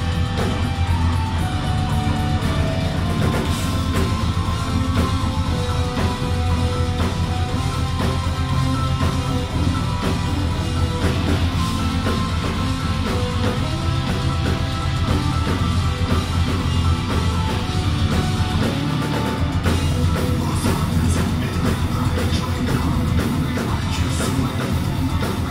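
Melodic death metal band playing live: distorted electric guitars over a drum kit, at full band volume.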